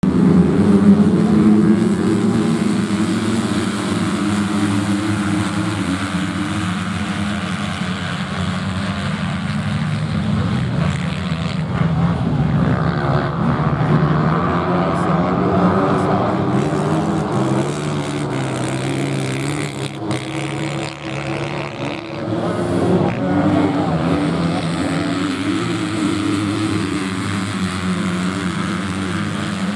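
Several motocross bikes' engines running hard in a pack on a sand track, overlapping drones that rise and fall in steps as riders open up and change gear.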